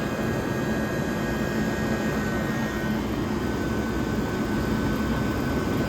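Vintage window air conditioners, a 1977 GE Super Thrust and a 1978 Comfort Air Quiet Master, running in cooling: a steady rush of fan air over a low compressor hum. A faint thin high tone drops out about halfway.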